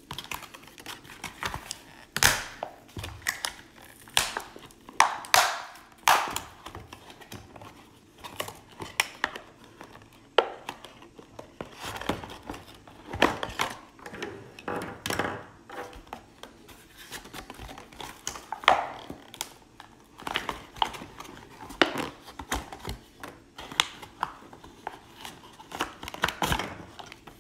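Clear plastic blister pack and its cardboard backing crinkling and crackling as they are pulled apart by hand, in irregular crackles with louder bursts every few seconds.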